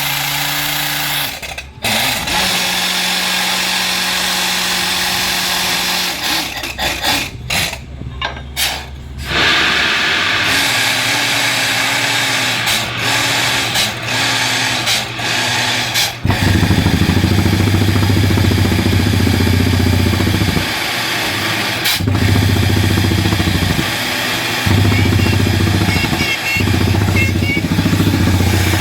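Engine of a borewell boring rig running, its pitch shifting as the load changes, with several brief dropouts a third of the way in. After about sixteen seconds it grows louder and deeper, coming in stretches of a few seconds each separated by short dips.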